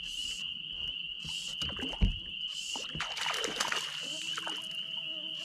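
Knocks and water noise around a small boat while a brook trout is played on a fly rod: a sharp knock against the hull about two seconds in, then a short rush of splashing and handling noise about a second later. A steady high-pitched insect drone runs underneath.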